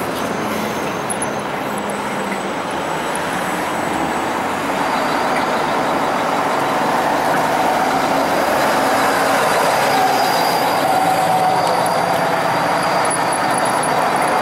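Street traffic noise with a bus driving past close by, its engine and tyres growing louder about halfway through.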